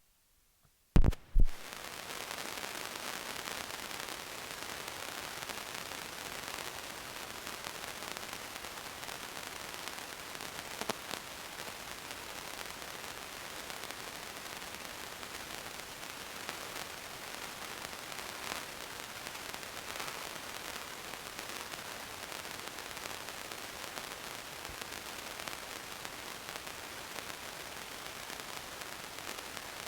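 A second of dead silence, two sharp clicks, then steady static hiss with a few faint ticks: camcorder recording noise with no scene sound.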